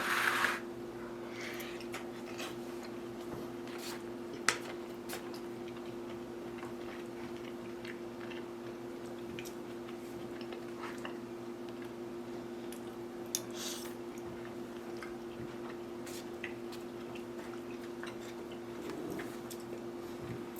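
A person quietly eating a rehydrated meal from a pouch: a brief rustle at the start, then scattered clicks of a spoon against the food and faint chewing, over a steady low hum.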